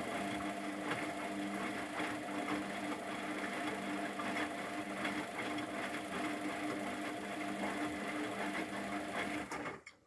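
Luxor WM 1042 front-loading washing machine turning its drum during the fabric-softener rinse: a steady motor whir with a few held tones over the churning of the wet load. It cuts off abruptly just before the end as the drum stops.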